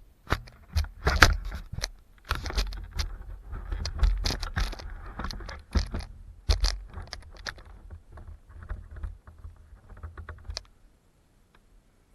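Irregular clatter of sharp knocks and rattles over a low rumble, stopping about ten and a half seconds in.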